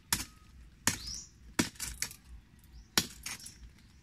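Hard oyster shells clinking and knocking together: about four sharp, separate clinks at uneven intervals, with fainter ticks between them.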